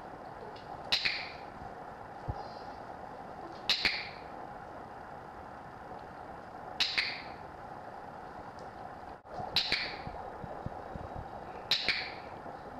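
Handheld dog-training clicker clicked five times, every two to three seconds, each a sharp double click. The clicks mark the dog's correct moves as she is shaped into a new trick.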